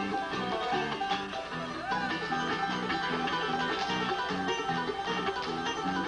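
Bluegrass string-band music led by a fast picked banjo with guitar, keeping a steady, even beat for clog dancing.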